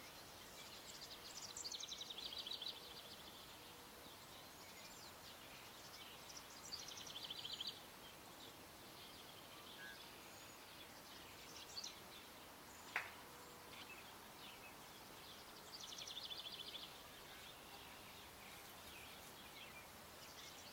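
Faint songbird singing a short, rapid run of high repeated notes three times, several seconds apart, over quiet outdoor background hiss. A single sharp click about two-thirds of the way through.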